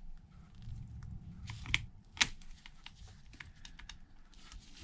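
Small clicks and taps of an iPhone logic board being handled and set down into a phone housing, with two sharper clicks about two seconds in.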